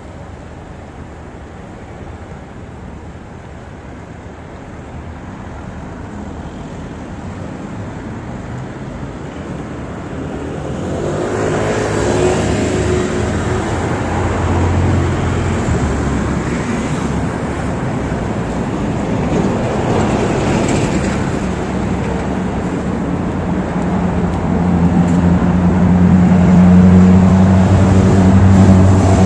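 Road traffic on a city street, growing louder as vehicles pass. Near the end a vehicle engine close by runs with a steady low hum, the loudest part.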